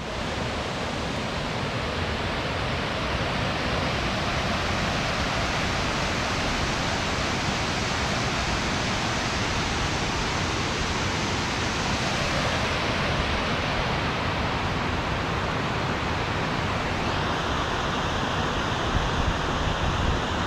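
Steady rushing of a waterfall cascading down a rocky mountain stream, an even, dense noise. Its tone shifts slightly about two-thirds of the way through.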